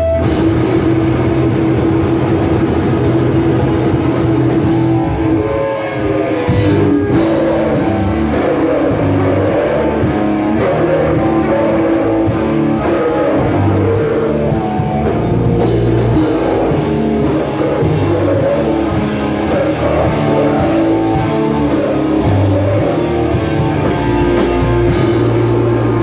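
Rock band playing live at full volume: electric guitars over a pounding drum kit.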